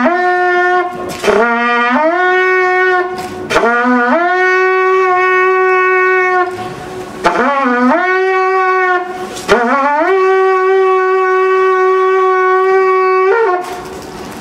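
Shepherd's horn blown in a signal-like call: about five phrases, each a short lower note that slides up into a long held higher note, with short breaks between them. The playing stops shortly before the end.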